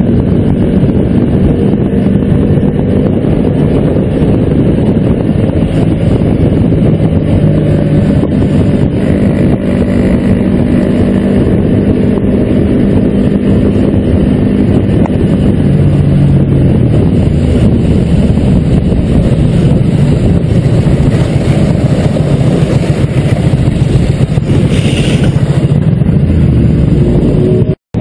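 Motorcycle engines running steadily at highway speed as a group of sport bikes rides together, a loud continuous engine drone. The sound cuts out for a moment near the end.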